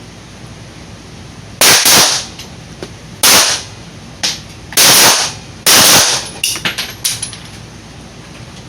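Handgun shots, about seven in all, several close together in pairs, each sharp crack with a short echo. Lighter clicks follow near the end.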